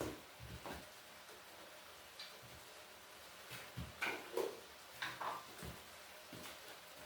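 Scattered light knocks and clicks, a few at a time, the loudest group about four seconds in.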